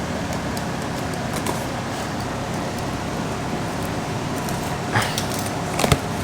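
Packaging rustling as a bag of spare parts is opened and handled, with a couple of sharp clicks of small parts near the end.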